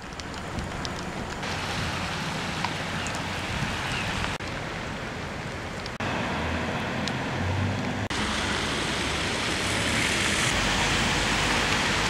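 Steady rain and wind noise, with several sudden shifts in level and tone.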